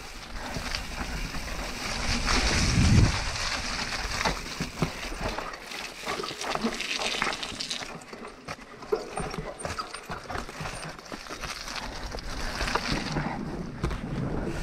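Propain Tyee 29-inch enduro mountain bike riding down a muddy trail: tyres rolling over wet ground with a steady stream of clicks, rattles and knocks from the bike. A louder low rumble comes about three seconds in.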